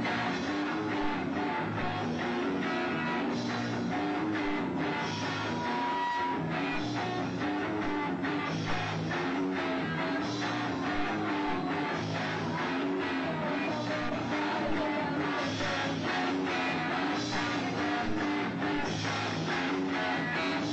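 Rock band playing live at a sound check: electric guitar and drum kit, with a steady beat and a repeating low bass line.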